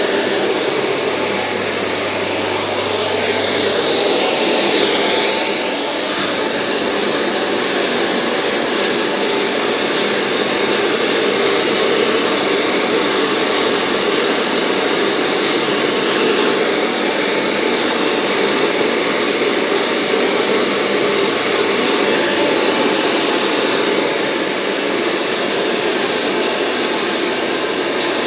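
Handheld hair dryer blowing steadily with a loud, even rush of air, its sound shifting briefly about five seconds in.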